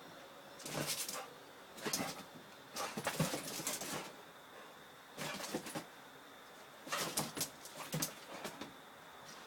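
Two dogs play-fighting: short, irregular bursts of scuffling and dog play noises, about seven in all, with quiet gaps between.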